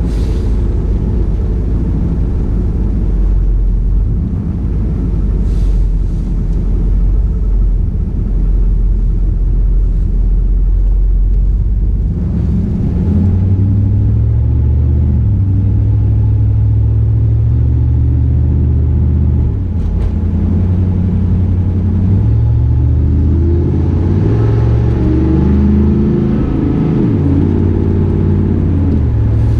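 Cabin noise of a 1993 Chevrolet Camaro Z28 on the move: the V8 engine running under a steady low road rumble, heard muffled through the GoPro's wind-reduction setting. About twelve seconds in, the engine note comes up clearly and rises and falls in steps as the speed changes.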